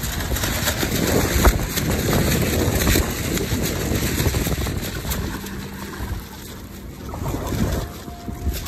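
Wind buffeting the microphone over water splashing along the hull of a sailing kayak under way. The noise eases a little about five seconds in.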